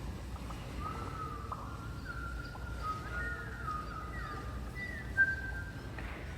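Several children whistling overlapping bird-like calls, short gliding notes and held tones, as a vocal imitation of birds in the bush. There is a single sharp knock about five seconds in.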